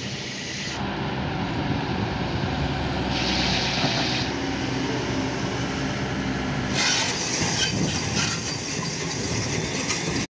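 Heavy diesel engine running hard under load, with bursts of hissing over the steady engine note; the sound cuts off suddenly near the end.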